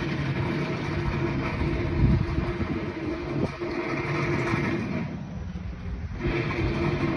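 Engines of railway track-maintenance machinery running steadily, a low rumble with a steady drone over it. It goes quieter for about a second some five seconds in.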